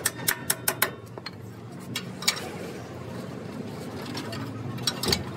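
Metal clinks of a hammer striking a ring spanner on a nut at a truck's front steering knuckle to loosen it: five quick strikes in the first second, then two more single clinks.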